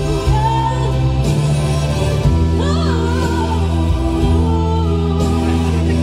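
A girl singing a slow ballad into a microphone, in two phrases, over a sustained accompaniment of held chords that change every second or so.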